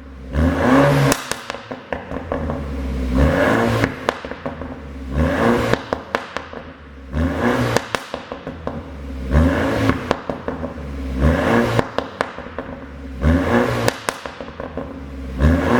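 2015 BMW 428i's turbocharged four-cylinder engine blipped to a rev about every two seconds, eight times, each rev followed by a burst of exhaust pops and crackles as the throttle closes. The pops on lift-off come from a 'pop and bang' tune.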